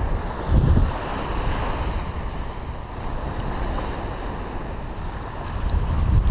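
Wind buffeting the camera's microphone in gusts, over the wash of small waves breaking and running up the sand.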